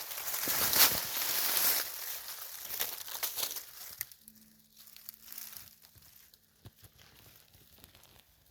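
Dry rustling and crinkling, loud and dense for the first three or four seconds, then dying down to scattered faint clicks.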